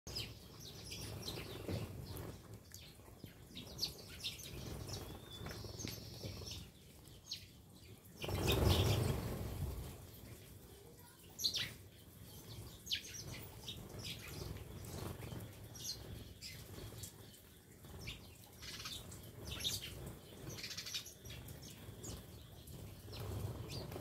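A flock of house sparrows chirping as they feed on the ground, with many short, scattered chirps. About eight seconds in comes a loud rush of many wings flapping at once, lasting a second or two.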